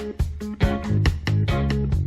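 Background music: an upbeat funk-style tune with guitar and bass guitar over a steady beat.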